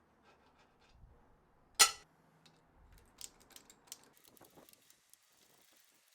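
A single loud, sharp knock about two seconds in, followed by a scatter of light clicks and taps.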